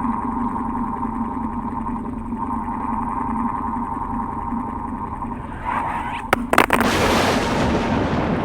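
Old electric fan running with a steady whirring hum. About six seconds in there are a few sharp clicks, then a loud rushing noise lasting about two seconds.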